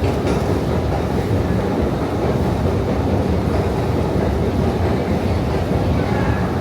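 New York City Subway train running along the track, a steady low noise with no breaks.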